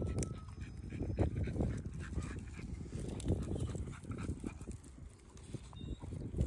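American Bully dogs moving about, with irregular low thumps and shuffling.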